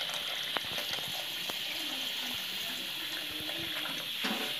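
Kitchen tap running into a stainless steel pot of cut beef tripe already half full of water: a steady stream splashing into the water, with a few light clicks.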